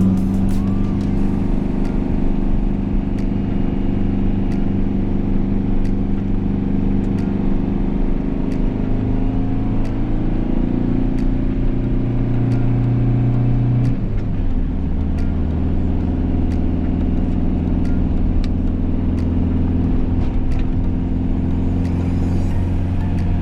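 Van engine labouring in second gear up a steep 25% hill, heard from inside the cab. The revs climb slowly, then drop suddenly about 14 seconds in.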